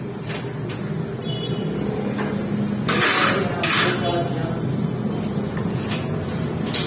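A screwdriver clicks and scrapes against the metal of a motorcycle's magneto stator (magnet coil) as it is fastened in place. There are two louder scrapes about three seconds in, over a steady low hum.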